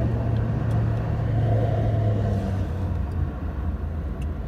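Steady low motor drone, its pitch settling slightly lower a little past halfway.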